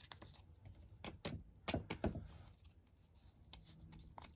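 Foil Pokémon booster pack wrapper crinkling in the hands, with a handful of short, sharp crinkles about one to two seconds in.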